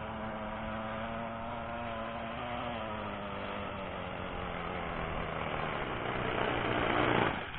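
O.S. FS-α .56 four-stroke nitro engine of an RC outrigger hydroplane running at speed with a steady putt-putt note that drops slightly in pitch about three seconds in. It grows louder as the boat runs in close, then drops away sharply near the end.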